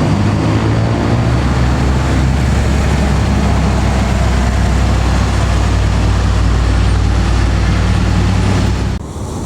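Heavy diesel tour-bus engine running loud and steady close by, with a deep low drone. It cuts off abruptly about nine seconds in.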